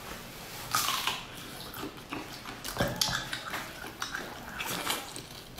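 Irregular wet, sticky squelches and smacks as braised pork is pulled apart by gloved hands, bitten and chewed.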